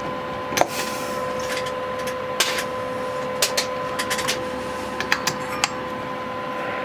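Coax cables and metal connectors being handled and clicked together, several sharp clicks and rattles, over a steady electronic tone.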